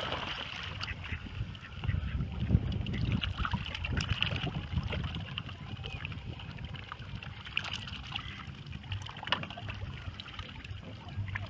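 Lake water lapping and sloshing around a camera held at the surface by a swimmer, with scattered small splashes as mallards paddle close by.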